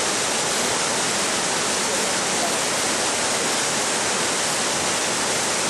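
Steady, loud rush of whitewater river rapids: water tumbling over rocks in an even, unbroken roar.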